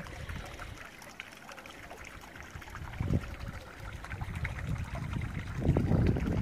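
Faint trickling of meltwater around a partly frozen garden pond. Wind buffets the microphone with a low rumble that builds near the end.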